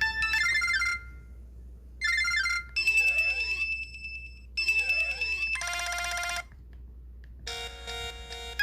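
Samsung SPH-M300 mobile phone playing electronic ringtones: short bright beeping melodic phrases, then twice a tone whose pitch sweeps up and down at the same time, then dense buzzy chords near the end.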